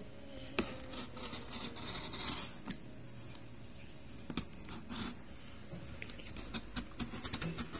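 Utility knife slicing through packing tape on a cardboard box: scratching and scraping of the blade along the tape and cardboard, with a quick run of sharp clicks and ticks near the end.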